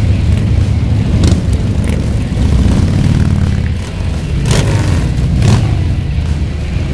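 Many motorcycle engines rumbling together as a pack of bikes rides past, the pitch rising and falling a little with the throttle, with a few sharp knocks about a second in and twice more near the middle.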